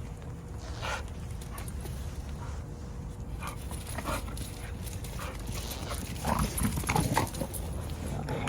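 Dogs playing and making short vocal sounds, with a louder flurry about six to seven seconds in.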